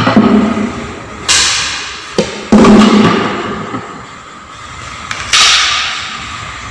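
Wooden drawing instruments, a protractor and a long ruler, knocking against a chalkboard: a few thuds and sharp clatters, the loudest thud about two and a half seconds in, over a steady background hum.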